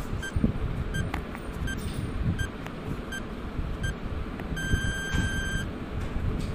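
Countdown-timer sound effect: short electronic beeps about every three-quarters of a second, then one longer beep lasting about a second, near five seconds in. A low, uneven rumble runs underneath.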